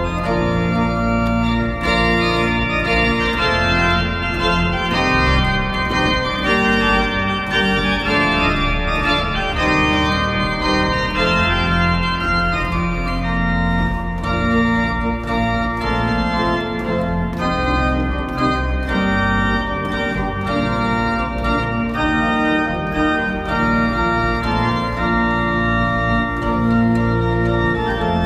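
Organ music: full sustained chords held and changing every second or so, at a steady loud level.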